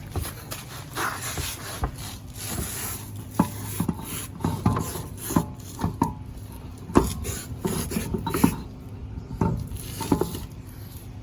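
Irregular clinks, knocks and scrapes of tools and metal car parts being handled during a front brake job.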